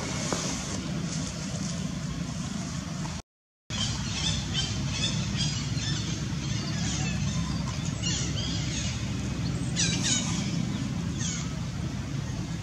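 Clusters of short high-pitched squeaks and chirps, several to a cluster, over a steady low engine hum, with a brief dropout to silence about three seconds in.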